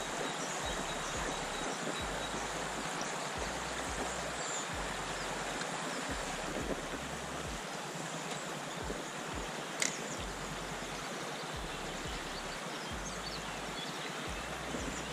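Steady rush of a river's flowing water, with a single sharp click about ten seconds in.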